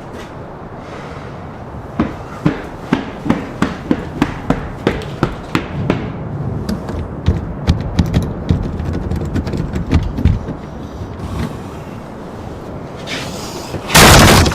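A rapid run of sharp knocks or blows, about two or three a second, followed near the end by one loud crash.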